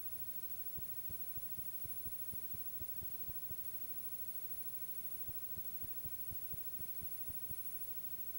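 Background noise of a recording with no programme sound: a steady low hum and hiss with a thin high whine. Over it come soft low ticks, about four a second, that pause for about two seconds midway.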